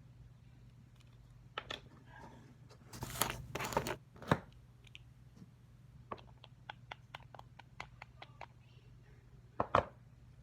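Crinkling, tearing handling noise, loudest about three to four seconds in, then a run of small sharp clicks and a few louder knocks.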